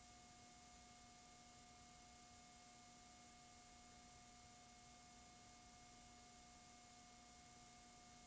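Near silence: a faint steady hiss with a few faint, unchanging hum tones.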